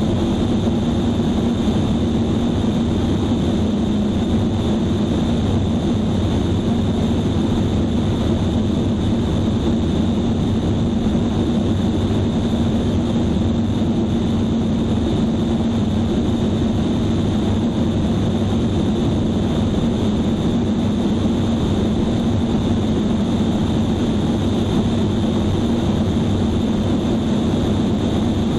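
Light propeller airplane's engine running steadily in cruise flight, with wind noise rushing over it.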